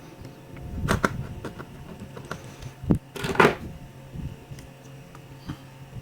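Small clicks, knocks and light clatter of the plastic casing and parts of an Asus X441B laptop being handled and fitted back together, with a louder scraping rustle about three seconds in.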